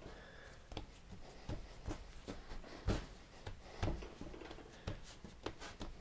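Hands kneading and rolling a stiff gingerbread dough on a floured wooden counter: faint, irregular soft thumps and rubbing, with one firmer thump about halfway through.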